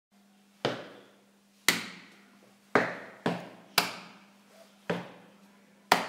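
A beatbox-style rhythm of shoe stomps and hand slaps: seven sharp hits in an uneven pattern, each dying away briefly in a small room, over a faint steady hum.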